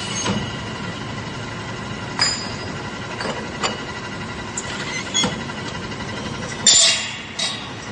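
Factory machinery running steadily with a faint hum, with irregular sharp metallic clanks and clinks, one louder clank near the end.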